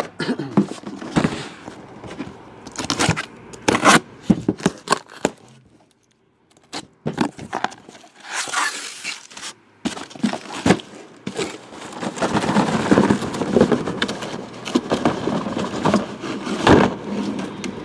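Cardboard shipping case being handled and opened: a run of scrapes, crackles and sharp knocks, dropping out briefly about six seconds in, then denser rustling and scraping.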